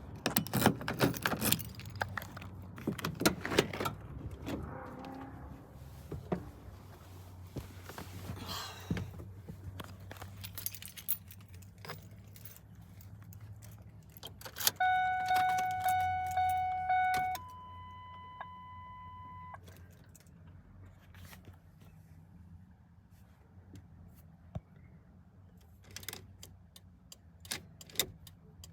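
Keys jangling and clicking as they are handled in a car. About halfway through, the car's electronic warning chime sounds: a pitched tone repeated about twice a second for a couple of seconds, then a steady higher tone for about two seconds.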